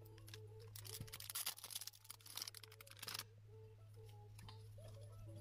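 Clear plastic packaging bag crinkling as it is handled, a dense crackle lasting about two seconds from about a second in.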